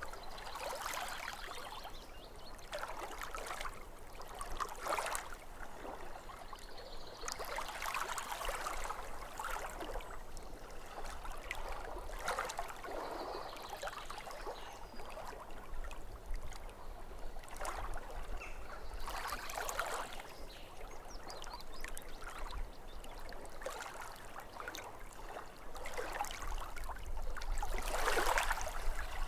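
Small waves lapping at a lake's edge, a splashing wash every two to three seconds over a faint low rumble.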